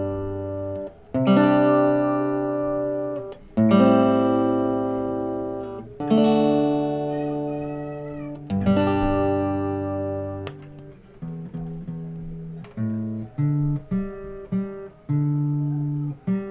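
A D&D Django Jr mahogany small-bodied acoustic guitar being played: chords struck about every two and a half seconds and left to ring out, then a quicker run of short picked notes over the last few seconds.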